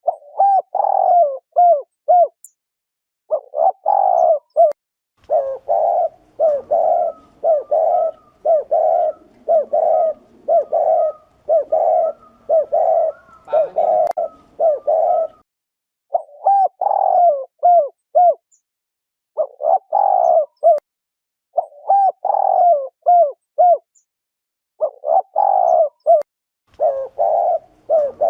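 Spotted dove giving its repeated 'gù' bow-coo, the male's display coo: quick low coos in groups of several with short pauses between, and a longer unbroken run of coos in the middle.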